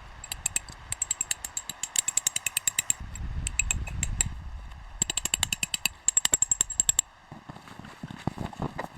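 Rapid runs of sharp, ringing clicks, about eight a second, in three spells separated by short pauses, with a low rumble under the middle runs and a few softer knocks near the end.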